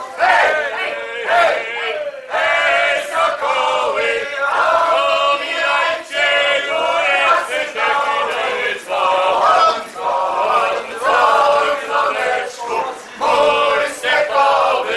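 A group of people singing together, men's voices to the fore, in held notes and short phrases with brief breaks between them.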